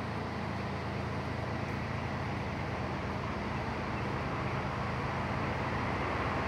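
A distant train running toward the station: a steady low engine hum under a broad rumble that slowly grows louder.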